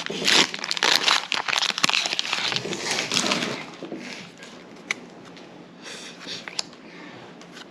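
Foil Pokémon booster pack wrapper crinkling loudly as it is handled and opened for the first three seconds or so. After that comes quieter rustling with a few light clicks.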